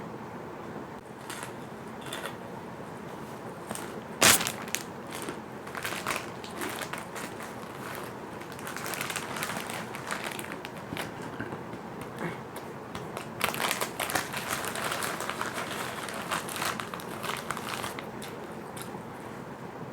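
Crispy fish crackers being bitten and crunched while eating, with a loud crack about four seconds in and runs of dense crunching after it.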